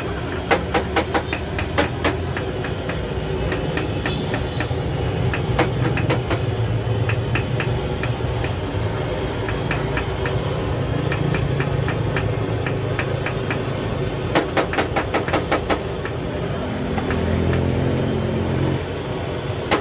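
Quick runs of light hammer taps, several a second, in bursts, over a steady low motor rumble that swells briefly near the end.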